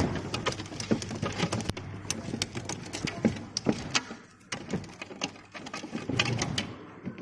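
Rapid, irregular clicks and knocks of hard parts being handled, several a second, easing off for a moment in the middle.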